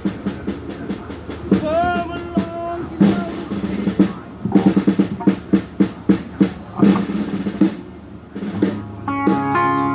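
Rock drum kit played at a band sound check: irregular snare and bass drum hits and quick fills. A sustained chord from the band comes in near the end.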